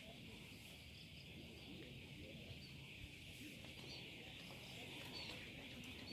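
Faint, steady chorus of insects: a continuous high buzzing hum that holds even throughout, over a low background rumble.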